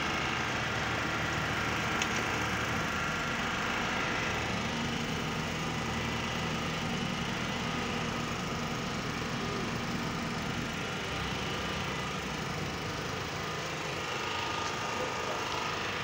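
Small engine running steadily at an even speed, a constant hum with a higher whine above it.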